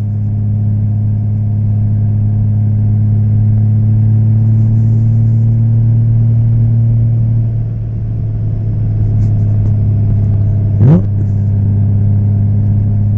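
Honda Valkyrie's 1832cc flat-six motorcycle engine running steadily under way. It eases off briefly a little past halfway, and a short, sharp rising sound cuts in near the end.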